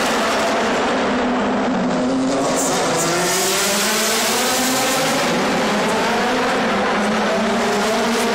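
DTM race cars' V8 engines at racing speed, pitch climbing and falling back again several times as they accelerate, shift and lift for the corners.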